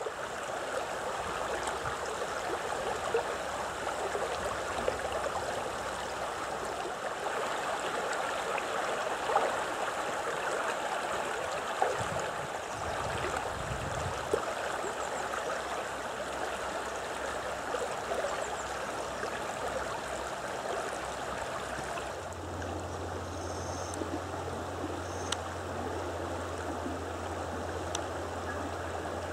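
Mountain river flowing: a steady rush of running water, with a few faint knocks in the first half. About two-thirds of the way in the water sound drops back and a low steady hum joins it.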